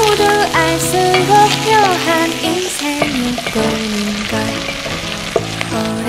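Onion, garlic, ginger and a block of hot pot base sizzling as they fry in oil in a pot, stirred with a wooden spatula. Background music with a moving melody plays throughout.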